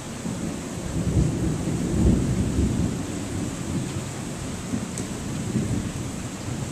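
Thunder rolling low, swelling about a second in, loudest around two seconds, then dying away slowly, over steady rain.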